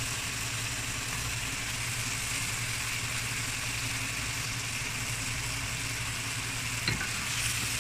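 Onion-and-spice masala sizzling in a frying pan as fried potato and pointed gourd pieces are tipped in, over a steady low hum; a single light knock about seven seconds in.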